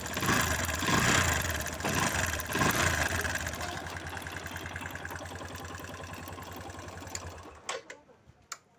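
Bajaj Discover 100 motorcycle's single-cylinder four-stroke engine running just after a self-start, revved a few times in the first few seconds, then idling steadily until it is shut off near the end, followed by a couple of clicks.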